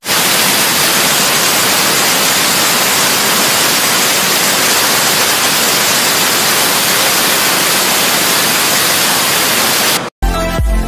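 Steady, loud hiss of white noise like TV static, cutting off suddenly near the end; electronic music with a heavy beat starts just after.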